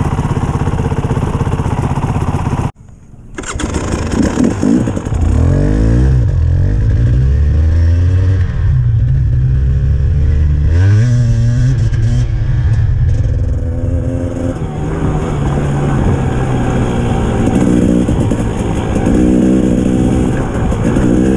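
Off-road motorcycle engine running on a trail ride, its revs rising and falling with the throttle. The sound cuts out briefly about three seconds in, then the engine carries on.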